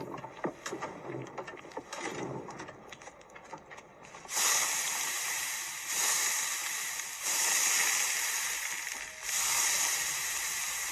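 Scattered clicks and knocks, then from about four seconds in a loud sizzling hiss in four long stretches with short breaks between them, typical of hot oil poured over noodles.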